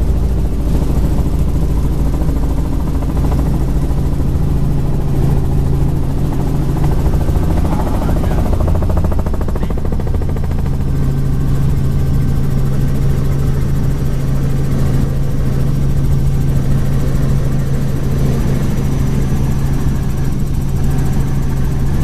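Helicopter in flight: engine and rotor making a loud, steady drone with a strong low hum.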